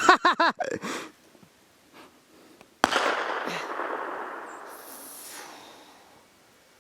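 A single AR-15 rifle shot about three seconds in: a sudden crack followed by a long echo that fades away over about three seconds.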